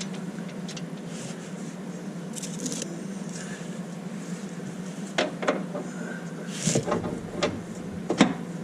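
Light metallic clicks and knocks of a washer and small metal parts being handled and fitted onto a snowblower shaft, a handful of them in the second half, over a steady low hum.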